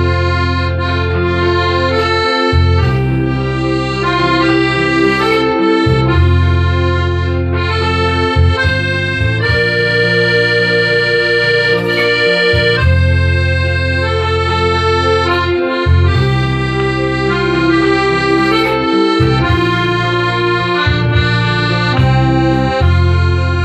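Hohner piano accordion playing a tune: a melody over long held low notes that change every two to three seconds.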